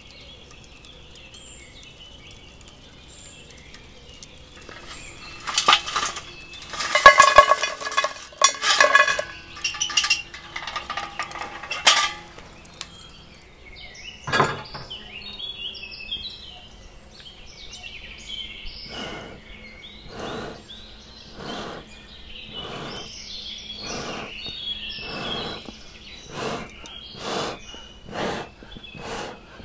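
Lumps of charcoal clinking and ringing against a cast iron pan, followed by a single knock. Then a hand bellows blows regular puffs of air onto the coals, about one a second and quickening toward the end.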